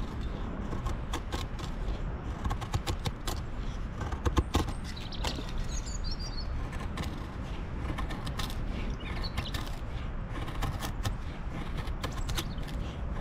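Mora Garberg knife shaving thin curls down a wooden stick to make a feather stick: a series of short scraping strokes of the blade through the wood, the loudest a little past a third of the way in. A bird chirps around the middle.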